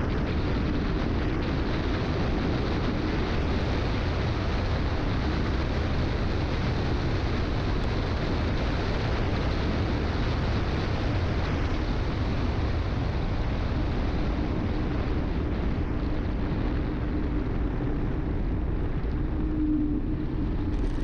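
Wind rushing and buffeting over the microphone of a handlebar-mounted camera on a personal electric vehicle riding steadily along a road. Under it is a steady hum that grows stronger near the end.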